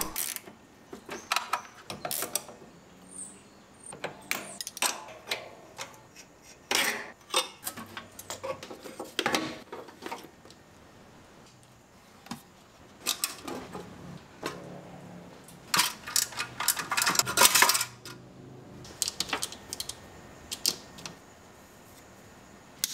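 Irregular metallic clinks and clatters of a spanner and small metal parts as a car battery terminal and the air-cleaner lid nut are undone.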